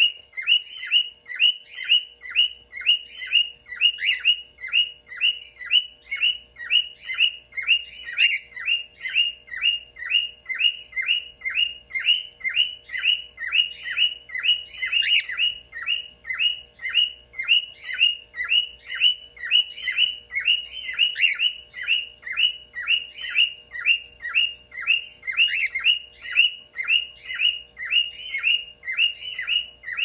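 Cockatiel singing: a fast, even run of short chirps, about three a second, kept up without a break.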